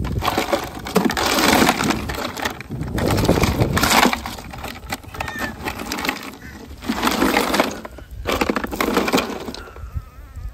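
A hand digging through ice in a hard cooler: ice cubes clattering and crunching in several bursts.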